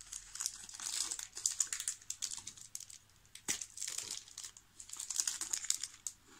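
Crinkly metallised plastic wrapper of a Tim Tam biscuit being handled and peeled back, a dense run of sharp crackles with the loudest a little past halfway.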